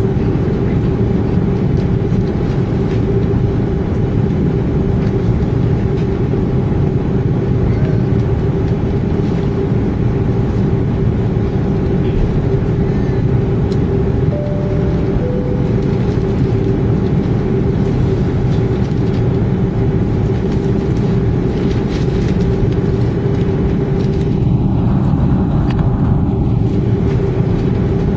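Steady cabin noise inside an Airbus A320 on the ground, its jet engines running at low power, with a constant mid-pitched hum over the rumble.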